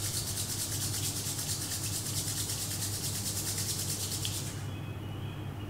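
Palms rubbed briskly together, skin on skin, in a fast, even rasping rhythm that stops abruptly about four and a half seconds in. The hands are being warmed by friction before they are cupped over closed eyes.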